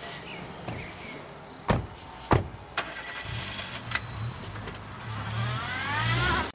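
Two car doors slamming shut, about half a second apart, on a small Chevrolet hatchback; then the engine starts and the car pulls away, its engine note rising in pitch near the end.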